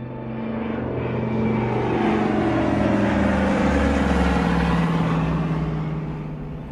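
A vehicle passing by: a noise that swells and then fades, its pitch falling steadily as it goes.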